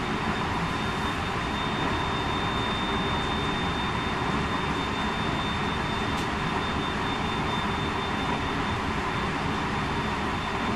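Running sound inside a JR West 223 series 2000 electric multiple unit's motor car at steady speed: continuous wheel-on-rail rumble with a steady high whine over it.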